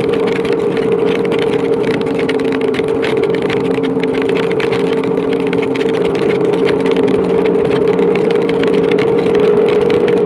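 Motorcycle engine running at a steady cruising speed, its drone holding one even pitch, under constant wind rush and the spatter of heavy rain on the microphone.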